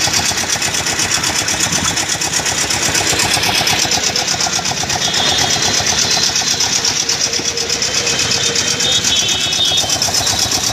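Small engine of a three-wheeled cargo vehicle running at idle with a rapid, even beat.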